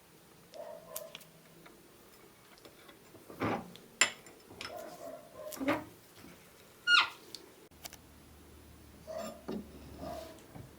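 Small metal parts and tools knocking, clicking and scraping, in a string of separate handling sounds, with a short squeaky scrape about seven seconds in.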